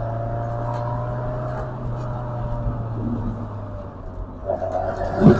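MG TF's four-cylinder engine running steadily as the car drives with the roof down, over a constant drone of road and wind noise. The engine note eases off and picks up again near the end, where a short thump sounds.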